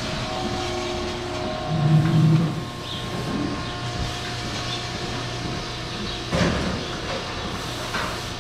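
Steady hum of dairy-barn machinery at a milking-robot stall, with a short low cow moo about two seconds in and a brief rush of noise around six and a half seconds.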